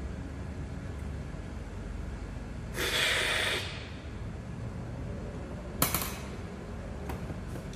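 A person sniffs in once, long and hard, for about a second, smelling the coffee at the grinder's hopper. A single sharp click follows about three seconds later, over a low steady room rumble.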